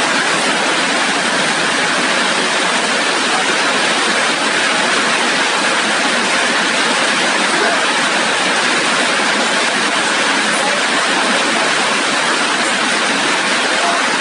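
Rain falling steadily: a dense, even hiss that does not let up.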